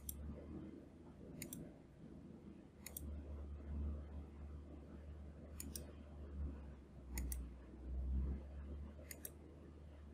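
Computer mouse clicks, a single click or a quick pair every second or so, over a low steady hum.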